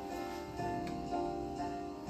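Soft background music with plucked string and keyboard notes.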